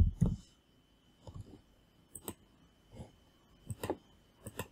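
Sparse computer keyboard and mouse clicks, about one a second, with a slightly louder knock at the very start.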